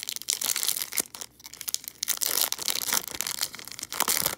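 Foil wrapper of a trading card pack crinkling and crackling as it is handled and opened by hand, in irregular bunches.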